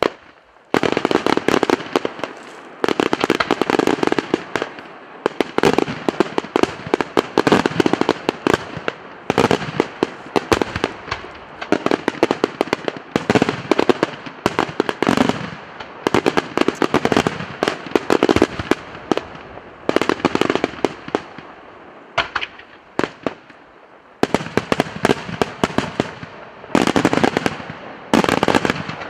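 Daytime aerial fireworks: shells bursting in the sky in dense, rapid volleys of sharp bangs, starting about a second in and going almost without pause, with a brief thinning to scattered single bangs about three quarters of the way through.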